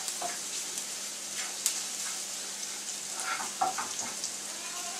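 Crushed ginger and garlic sizzling in hot oil in a non-stick frying pan, stirred with a spatula that scrapes and taps the pan a few times.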